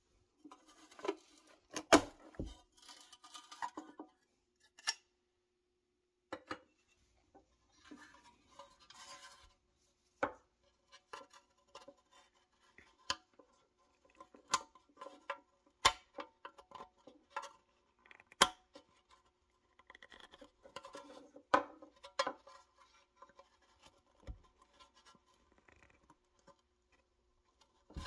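A small screwdriver working against the tabs of a rusty pressed-steel toy truck cab: irregular scraping with sharp metallic clicks every second or two.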